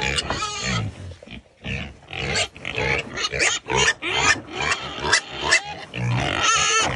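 Large boar grunting in a quick run of short grunts, about three a second.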